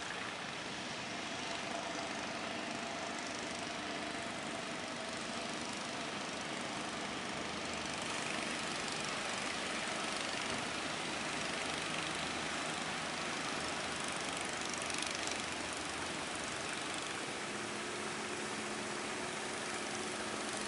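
Steady rushing of surf breaking on the shore, with the faint hum of fishing boats' engines running offshore; another boat engine's hum joins near the end.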